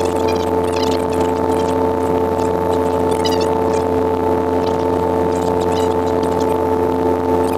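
Robinson R22 helicopter in steady forward flight, heard from inside the cabin: a constant drone of engine and rotor with an unchanging whine over it.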